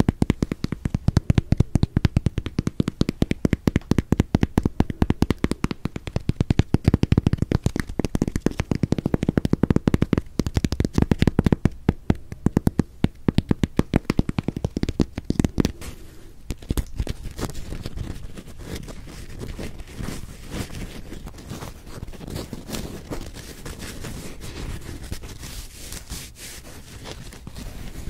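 Fingertips and nails tapping and scratching the crisp crust of a round potato bread held close to the microphones: rapid, loud clicking taps. After about sixteen seconds the sounds turn softer, a lighter crackling and rubbing of the crust.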